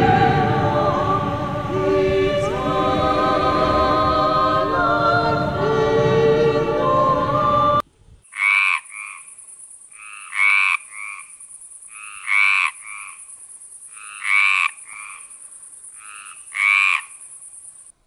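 Choral-sounding music that cuts off sharply about eight seconds in. Then a frog croaking five times, each a longer croak followed by a short one, about one every two seconds, over a steady high-pitched hiss.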